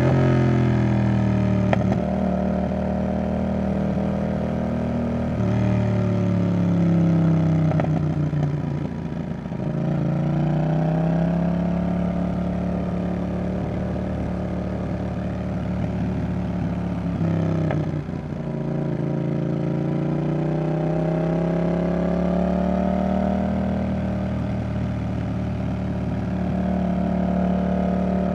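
Yamaha XSR700's 689 cc CP2 parallel-twin engine running through an aftermarket Roadsitalia Double Fire exhaust while riding. The engine note falls off at first, drops low about ten seconds in, then climbs steadily under throttle. It dips sharply once about two-thirds of the way through and rises again before settling near the end.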